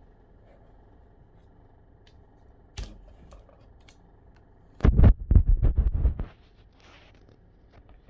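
A clear plastic takeout food container being handled on a table: a single tap, then about a second and a half of bumps and plastic crackling, a brief rustle and another bump.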